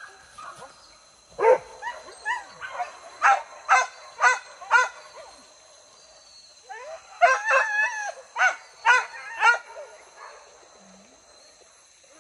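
Hunting dogs barking in two runs of quick, high-pitched barks, the first about a second and a half in and the second about seven seconds in.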